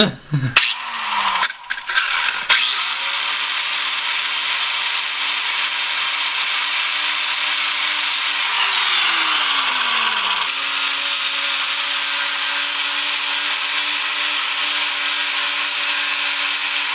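Angle grinder cutting into a seized steel flywheel bolt: a few knocks, then the grinder runs steadily with a harsh grinding rasp, is released and winds down about eight seconds in, then starts again and keeps grinding.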